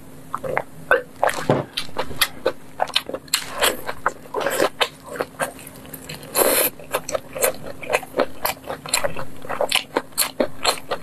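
Close-miked eating: wet chewing, lip smacks and mouth clicks from biting and chewing a soft, sauce-coated skewered food. The clicks come in a quick irregular run, with a few longer, noisier mouth sounds between them.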